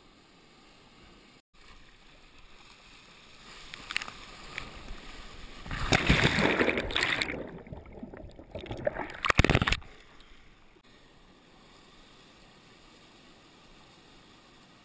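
Breaking surf crashing over a sea kayak: water rushes and splashes loudly through the middle stretch, goes muffled for a moment as the deck goes under, then splashes hard once more before settling back to a low steady wash.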